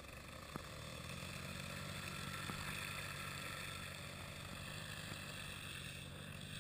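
Paramotor's engine and propeller running during a take-off run, a steady buzz that grows louder about a second in.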